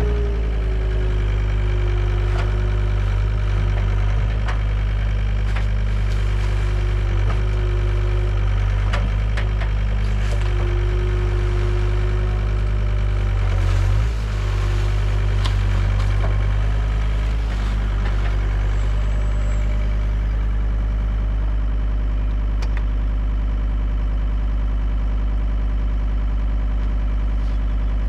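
Excavator's diesel engine running steadily, with a mid-pitched tone that comes and goes over it and a few faint clanks; the engine dips briefly about halfway through.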